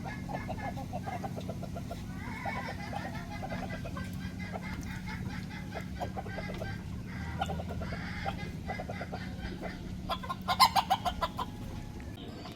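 Chickens clucking in runs of short, quick notes, with a louder burst of rapid cackling about ten seconds in.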